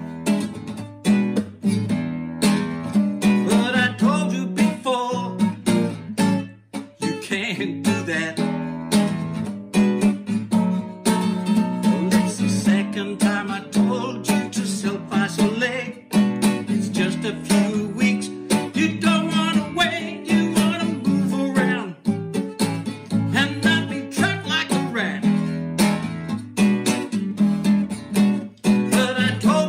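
Nylon-string classical guitar strummed in a steady rhythm, with a man singing along.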